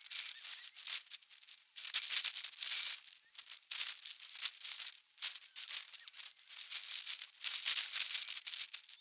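Outdoor ambience played back at 36 times speed: irregular rushes of high, rattly hiss that swell and fade every half second to a second, with nothing low left in it.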